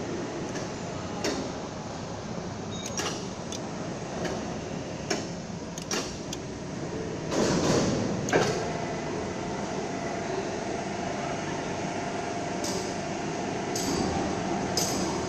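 Steady mechanical background noise with scattered clicks and knocks, a louder clatter about eight seconds in, and a faint steady hum-tone from about ten seconds on.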